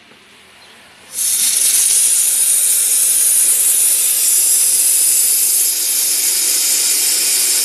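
Steam cleaner jetting hot steam into a car's air-conditioning ducts: a steady, loud hiss that starts suddenly about a second in.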